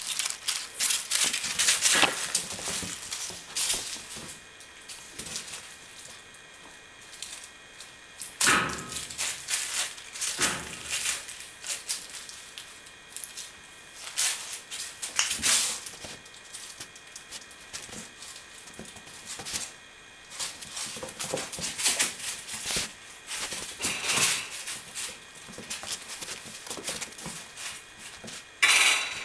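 Kittens scampering and pouncing on a hard floor: irregular pattering, scrabbling and scuffing of small paws, with occasional thumps, the loudest near the end as a kitten comes right up against the camera.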